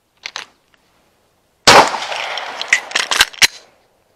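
A short click as the pistol is drawn, then a single loud semi-automatic pistol shot about 1.7 seconds in that echoes across the range. Several sharp metallic clicks follow within the echo as the pistol is reloaded with the spare magazine.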